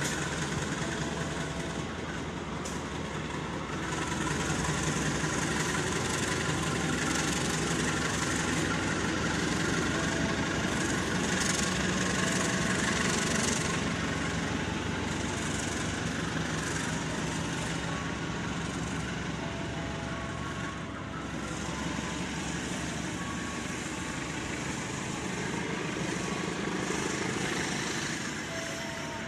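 CC 203 diesel-electric locomotive pulling an express train away from the station under power: a steady engine drone mixed with wheel and rail noise, loudest a few seconds in and easing off as the train draws away.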